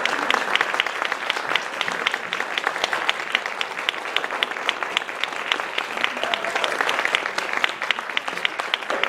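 Audience applauding, with one pair of hands clapping close by in a quick, steady rhythm of about six claps a second over the crowd's clapping.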